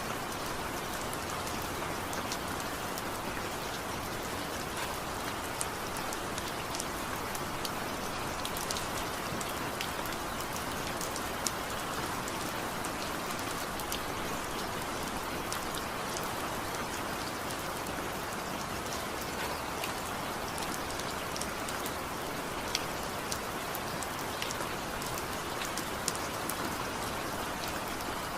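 Steady rainfall, with no thunder or music: an even hiss of rain, with scattered individual drops ticking sharply on a surface throughout.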